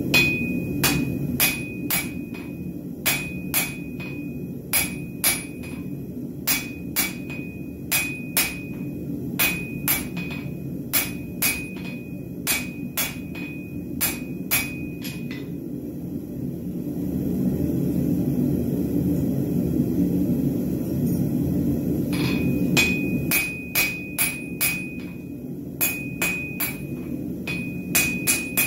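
Hand hammer drawing out a hot half-inch round steel bar toward 3/8 square on an anvil: sharp blows about two a second, each with a clear ring from the anvil. The hammering stops for about six seconds midway, leaving only a steady low rush, then starts again.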